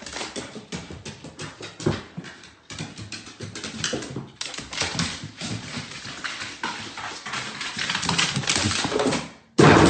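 A dog's claws clicking and paws thumping on hardwood stairs as it goes down them: a quick, uneven patter of taps and clicks.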